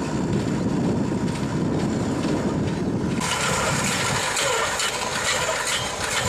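Tractor running while pulling an inter-row cultivator through the soil between maize rows. About three seconds in, the sound switches abruptly from a low rumble to a brighter hiss with many fine clicks and rattles.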